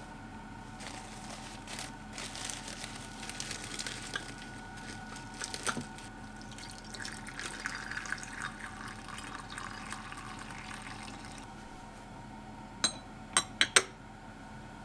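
Water running or pouring for several seconds, then stopping abruptly, followed by four quick clinks.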